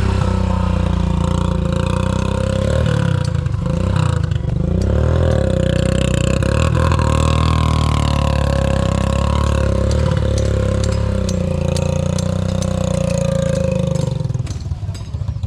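A loud engine running steadily, with light clatter over it; it dies away near the end.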